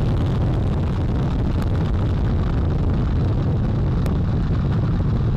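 NASA Space Launch System rocket in the first seconds after liftoff: its four RS-25 core-stage engines and two solid rocket boosters at full thrust give a loud, steady, deep rumble.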